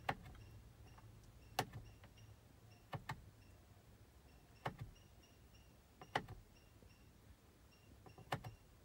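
Push-button select switch on a Mitsubishi 4P10 truck's meter cluster clicking under a finger, about six presses roughly a second and a half apart, a few heard as a double click.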